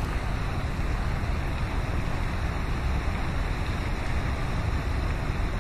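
Wind buffeting the microphone: a steady low rumbling rush with no distinct events.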